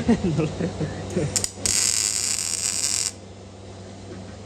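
MIG welder tacking a sheet-metal wheel tub panel: a steady arc crackle and hiss starting a little under two seconds in, lasting about a second and a half, then cutting off.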